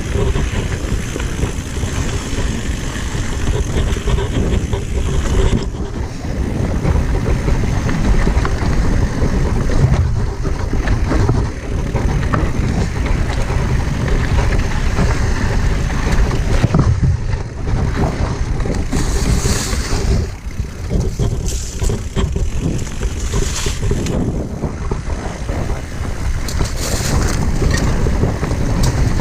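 Wind buffeting the microphone over a steady rumble, with many short knocks and rattles: a bike descending a rough downhill trail.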